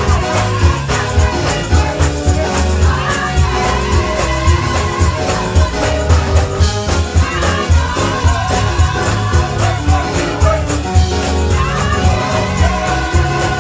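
Gospel choir singing with a band, over a strong bass and a steady beat.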